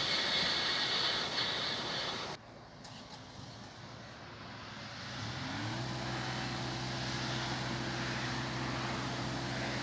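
Train running noise that cuts off suddenly a couple of seconds in. It is followed, about halfway through, by a low electric hum that rises briefly in pitch and then holds steady, like a train's electrical equipment running up.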